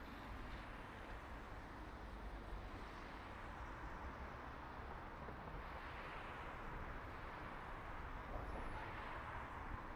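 City road traffic ambience: a steady low rumble and hiss of vehicles, swelling as traffic passes about six seconds in and again near the end.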